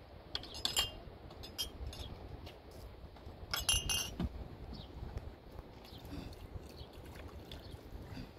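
Sharp clinks and knocks of hard objects striking each other. Two quick clusters ring out, about half a second in and again around three and a half seconds in, with scattered single clicks between them.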